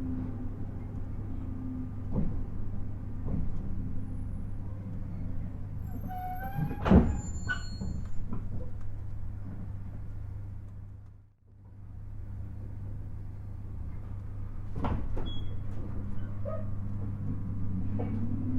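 Cabin of a JR East 719 series electric train: steady running hum as it slows for a station stop, with a sharp clank and a brief squeal about seven seconds in. The sound fades out for a moment past halfway, then the train pulls away, its motor tone rising in pitch near the end.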